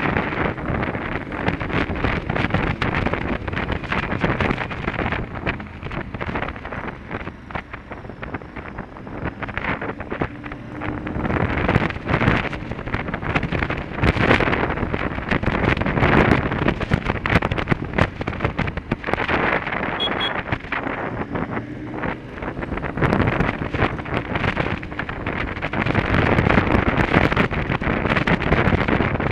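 Riding motorcycle's engine running under wind buffeting on the microphone. The wind rises and falls with the bike's speed, loudest in the second half.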